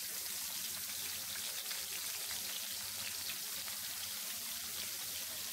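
Oil sizzling steadily with fine crackling around whole koi fish (climbing perch) shallow-frying in a non-stick pan.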